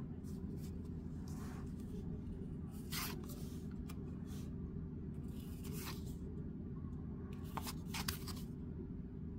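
Cardboard baseball trading cards being handled: short soft swishes and flicks as cards slide off and onto the stack, about one every second, over a steady low hum.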